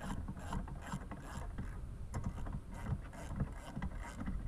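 Ratchet wrench with a 15 mm socket clicking in short irregular runs as it tightens the bolts that join a steel bed-step mounting bracket to its linkage.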